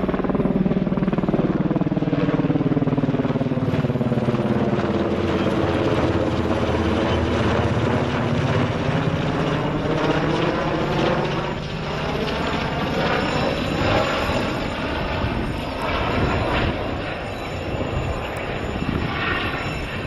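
NH90 twin-turbine helicopter flying low overhead, a steady rotor and turbine rumble with a swirling phasing sweep as it passes over.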